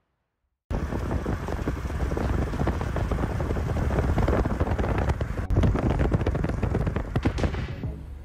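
Loud wind buffeting the microphone, a rough, crackling rush that starts suddenly under a second in and dies down near the end.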